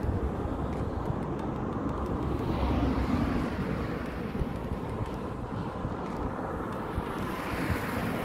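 Steady road traffic noise from a multi-lane highway, with an uneven low rumble underneath; it swells about three seconds in and again near the end.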